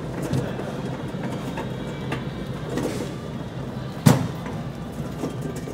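Flatbed platform cart rolling over a concrete floor, a steady rumble from its wheels, with one sharp clunk about four seconds in.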